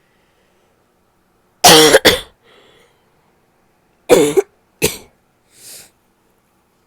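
A person coughing: two coughs in quick succession about a second and a half in, then two more about four and five seconds in, with faint breaths after each pair.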